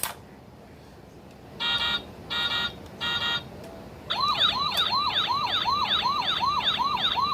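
Toy fire truck's electronic sound effects: three short honks of a horn tone, then a fast warbling electronic siren starting about four seconds in, rising and falling about three times a second.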